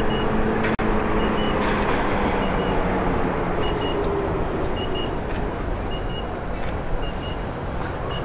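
Steady low rumble of the docked training ship's running machinery, with a short high beep repeating about once a second.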